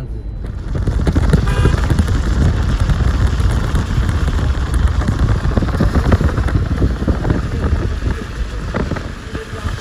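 Wind blowing hard across the microphone: loud, rumbling buffeting that eases a little near the end.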